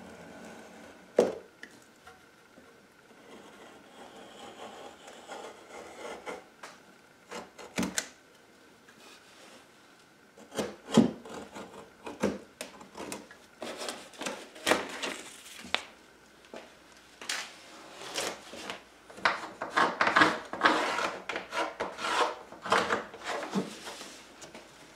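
A hand tool rasping and cutting at plywood in short strokes. There are a few scattered knocks at first, then a run of quick, louder strokes in the second half.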